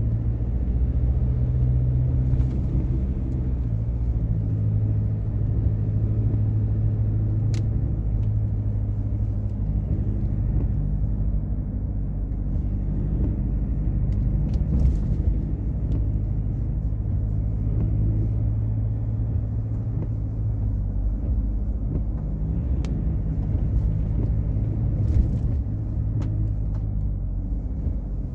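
Ford Ranger Wildtrak pickup driving: a steady low engine and road rumble with a deep engine hum, which eases about three quarters of the way through. A few faint ticks sound now and then.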